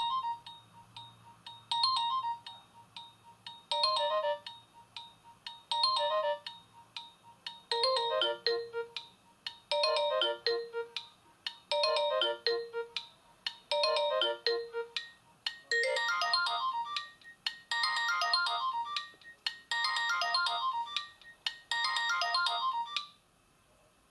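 Nokia E50 mobile phone playing a ringtone through its loudspeaker: a short electronic melodic phrase repeated about every two seconds, a dozen times, moving to lower notes partway through and to higher ones later, then cutting off near the end.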